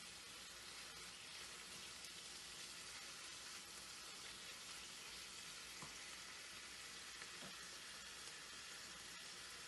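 Diced pork sizzling steadily as it fries in a pan and is turned with a wooden spatula, with a couple of faint taps of the spatula against the pan about six and seven and a half seconds in.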